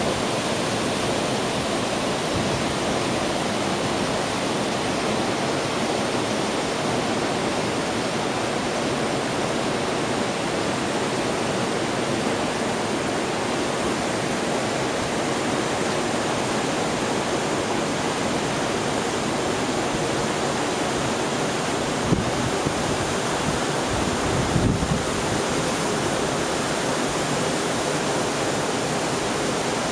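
A cascade of water spilling over rock into a pool: a steady, even rushing. A couple of brief low thumps come about three-quarters of the way through.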